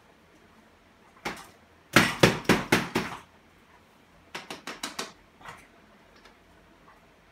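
Sharp knocks and rattles against a whiteboard as puppets are moved along its top edge: a single knock, then a burst of about six loud knocks a couple of seconds in, and a softer run of quick taps a little later.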